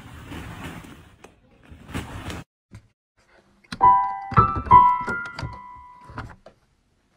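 A couple of short rustles or knocks, then about four piano-like keyboard notes struck in a short, uneven run about four seconds in, each ringing on briefly before fading.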